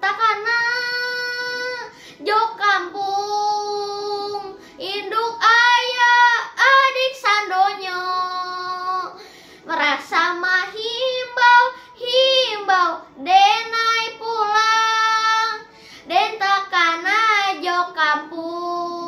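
A boy singing a melody in phrases of long, wavering held notes with short breaks between them.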